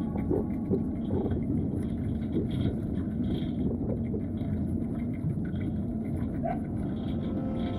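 Steady low rumble of wind buffeting the microphone, with road noise from a bicycle riding along a paved street.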